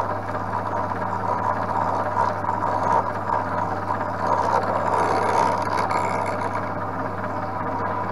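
Vertical milling machine running, its end mill cutting a white Delrin bar as the bar is turned by hand in a spin indexer: a steady motor hum under a rough, varying cutting noise. The work is being wound the wrong way, so the end mill is climb milling.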